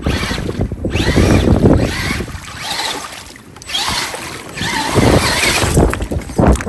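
Strong wind buffeting the microphone in gusts, easing briefly about three seconds in.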